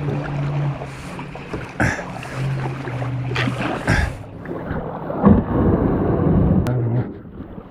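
Kayak paddling: water splashing and sloshing with a few sharp paddle strikes, and wind buffeting the microphone, loudest in the last few seconds. A low steady hum comes and goes underneath.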